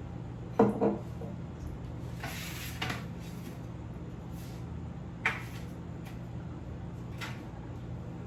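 Knocks and handling noises, like a cupboard or utensils being moved: two sharp knocks just over half a second in, a brief rustle around two to three seconds, and another knock about five seconds in, over a steady low hum.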